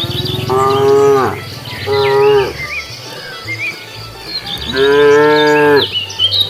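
Cows mooing: three calls, a long one of about a second, a short one, then another long one, each dropping in pitch as it ends. Birds chirp faintly in the background.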